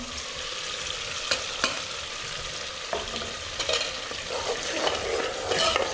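Soup bubbling and sizzling in an aluminium pot over a charcoal fire, with a few sharp clicks. From about halfway through, a wooden spoon stirs it and scrapes against the pot.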